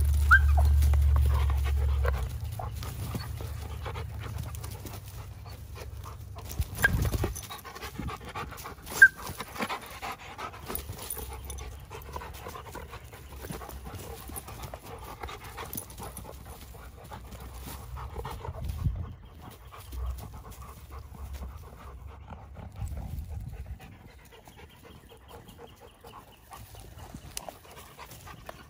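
Giant schnauzers play-fighting on wood mulch, panting, with scuffling and a couple of sharp knocks about 7 and 9 seconds in. A low rumble fills the first two seconds.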